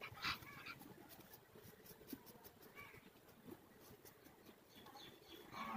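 Faint scissor snips and comb scratching as the hair at the nape is trimmed, with one brief louder sound just after the start.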